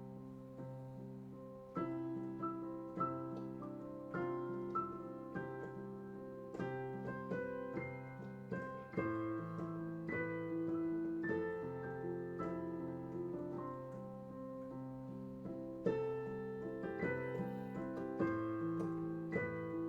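Instrumental passage of a song on piano: notes struck in a slow, flowing pattern over chords and left to ring.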